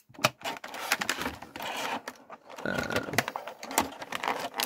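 Clear plastic blister tray crackling and clicking as an action figure is worked free of it by hand, with a brief squeak about halfway through.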